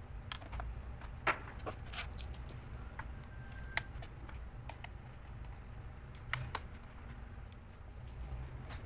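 Irregular light clicks and taps of tools and small parts against a laptop's plastic case during disassembly, over a steady low hum.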